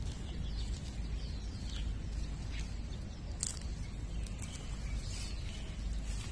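A few short, high chirps from a small animal, scattered over a steady low rumble, with one sharp click about three and a half seconds in.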